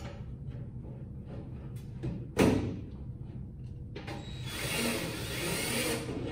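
Cordless drill driving a self-drilling, self-tapping screw into the sheet-metal fixture: a steady whir of about two seconds, starting a little past the middle. About two and a half seconds in there is a single loud, short clack.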